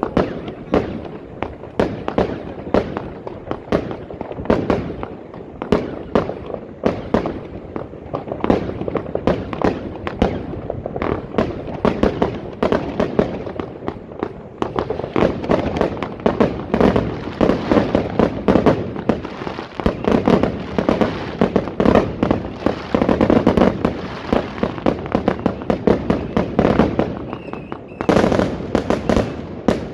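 Fireworks and firecrackers going off without letup: a dense barrage of bangs and crackles, several reports every second.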